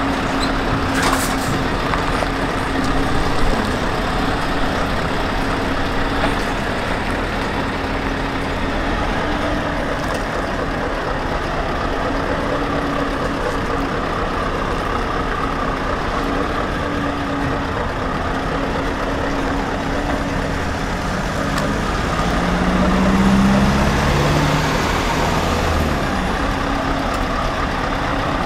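Scania S520's V8 diesel truck engine running steadily as the truck and trailer manoeuvre, with a short hiss about a second in and the engine note rising briefly near the end.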